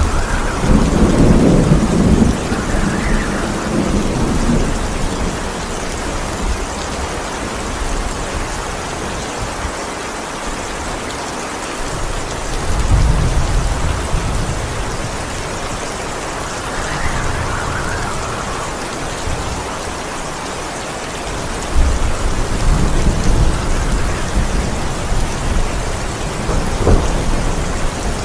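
Steady rain with thunder. A sharp clap at the start rolls into a rumble lasting several seconds. Another low rumble comes about twelve seconds in, then a second sharp clap and rumble about twenty-two seconds in, with a brief crack near the end.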